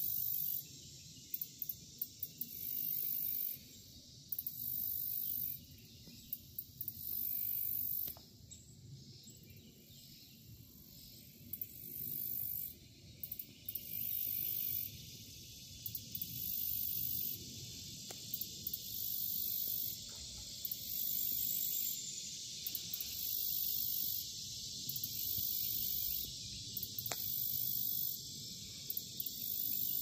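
Insects calling in summer vegetation: a very high, hissing buzz about a second long that repeats roughly every two seconds, pausing for a few seconds partway through, over a softer steady insect hiss.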